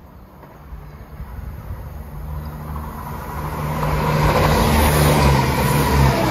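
CrossCountry Class 170 Turbostar diesel multiple unit approaching and passing close. Its diesel engine hum and wheel-on-rail noise grow steadily louder and are loudest as the cars go by near the end.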